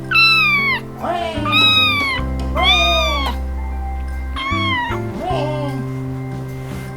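A kitten meowing, four loud high-pitched meows that each fall in pitch, then a fainter one, over background music.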